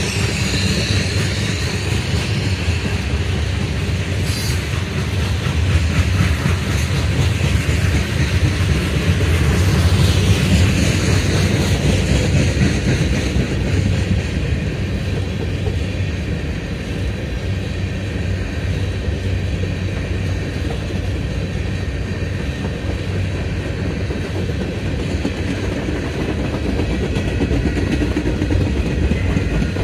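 Norfolk Southern freight train's tank cars and open-top hopper cars rolling past close by: steel wheels running on the rails in a steady low rumble, swelling slightly about a third of the way through.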